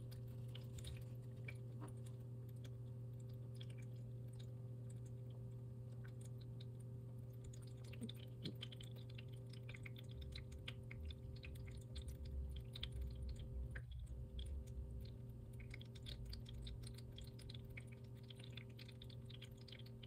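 Uah Pet ZERO wireless cat water fountain running with a steady low pump hum, while a cat laps water from the bowl in quick little wet clicks, more of them in the second half.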